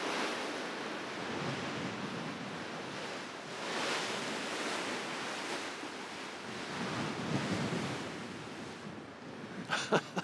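Sea washing along the side of a moving ship, with wind on the microphone, swelling louder a few times.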